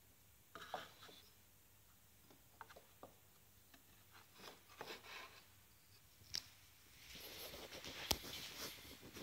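Faint clicks, light knocks and rubbing of wooden dowel pieces being handled and set against one another, with one sharp click near the end.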